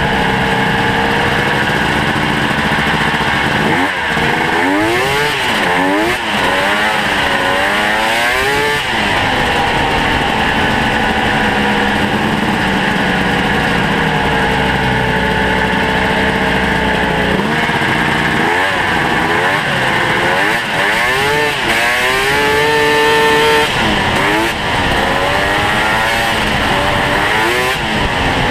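Ski-Doo Mach Z snowmobile's hand-ported two-stroke engine running under way. The revs swing up and down in quick surges, first from about four to nine seconds in and again from about eighteen to twenty-four seconds in, with steadier running between.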